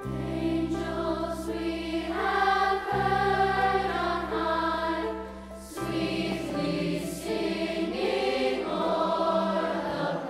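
Large youth choir singing held, sustained notes over low steady tones, in phrases broken by brief pauses about three and six seconds in.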